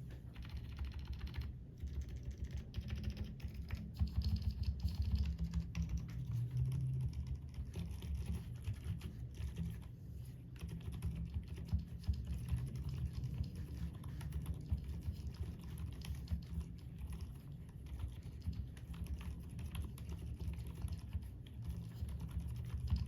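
Continuous fast typing on a 98-key custom mechanical keyboard with Outemu Silent Peach silent switches, the keystrokes coming in a steady dense stream.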